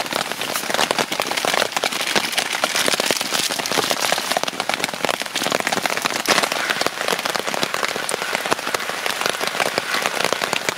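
Heavy rain falling steadily, a dense stream of drops striking a tarp overhead and the wet gravel ground.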